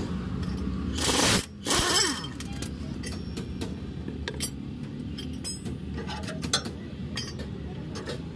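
Metal tools clinking and knocking against a pickup truck's leaf spring, axle and screw jack during spring repair work, with two louder noisy scrapes about one and two seconds in.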